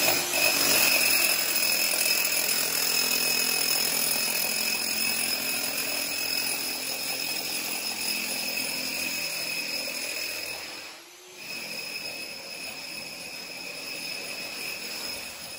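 Electric drill boring a 4-inch hole through a concrete block foundation wall with a core bit: a steady grinding noise with a high whine, which drops out briefly about eleven seconds in and then resumes a little quieter.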